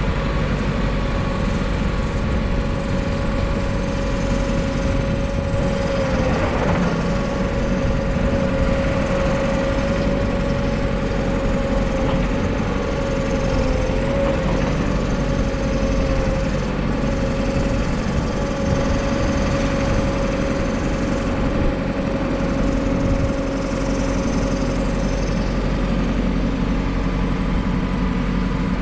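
JCB 4CX backhoe loader's diesel engine running steadily at idle, with a constant whine above the low engine rumble.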